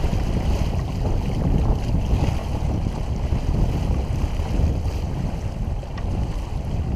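Wind buffeting the microphone over the rush of water along the hull of a sailboat under sail, a steady, loud noise.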